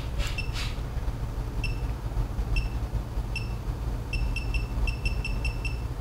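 Short, high-pitched electronic beeps, single ones about a second apart and then a quick run of about eight near the end, over a steady low hum. There are two short clicks soon after the start.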